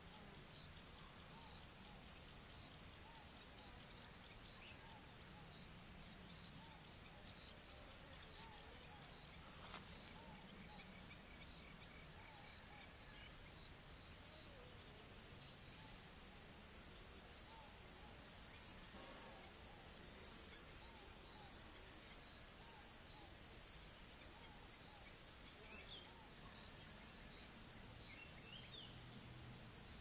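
Crickets and other insects chirping outdoors: regular high chirps a few times a second over a steady high-pitched insect drone that stops about 26 seconds in, with faint short calls lower down.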